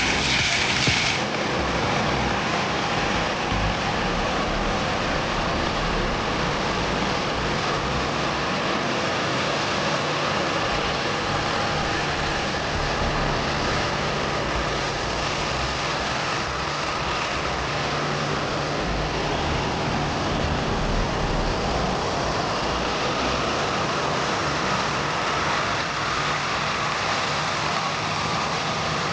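Boeing 737-800's CFM56 jet engines running steadily: a constant rush with a faint whine in it. A brighter high hiss cuts off about a second in.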